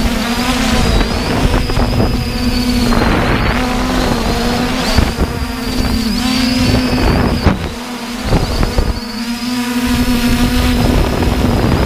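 3DR Iris+ quadcopter's brushless motors and propellers humming steadily in flight, with a thin high whine that wavers slightly, over wind buffeting the microphone.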